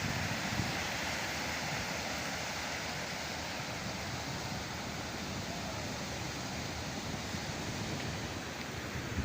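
Sea surf rushing and breaking in a steady wash, with some wind on the microphone.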